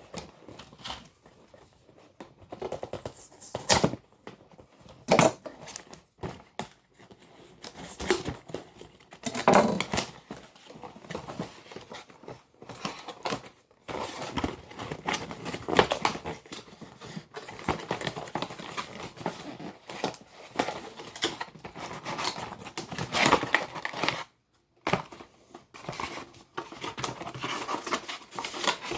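Toy packaging being opened by hand: irregular crinkling and tearing of plastic and cardboard, with scattered knocks.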